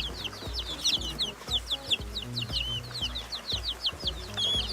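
Baby chicks peeping: a busy run of short, high cheeps, several a second, from a group of chicks, over background music with a steady beat.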